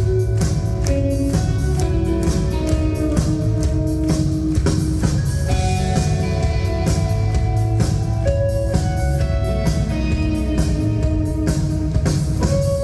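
Live band music: guitars playing held notes over a drum kit keeping a steady beat.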